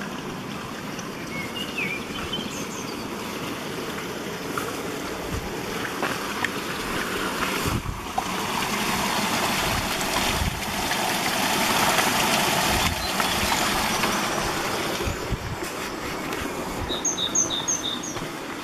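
Water running out of a stone culvert, a steady rush that swells and is loudest midway as it is passed. A small bird gives a few chirps early on and a quick run of four chirps near the end.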